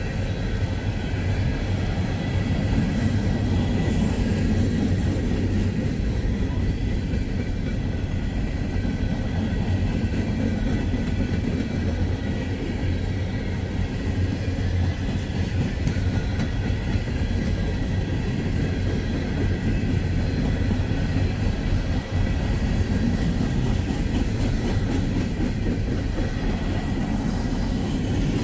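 Empty coal cars of a freight train rolling past, a steady, continuous rumble of wheels on rail.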